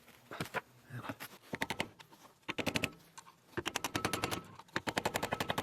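Four bursts of rapid metallic clicking, about fourteen clicks a second, from a steel tool chattering against a hydraulic cylinder gland while the wiper seal is pried and worked out of it.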